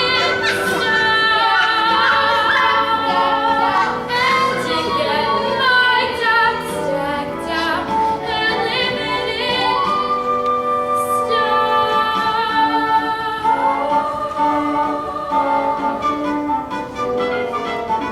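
Women's voices singing a show tune with accompaniment, holding several long notes in the second half.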